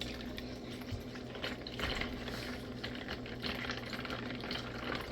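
Cold milk being poured into a bowl of cereal: a soft, continuous pouring with many small irregular clicks.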